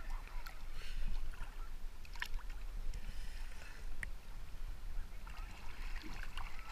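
Lake water sloshing and lapping around a camera held right at the surface, with scattered small splashes and drips and a steady low rumble underneath.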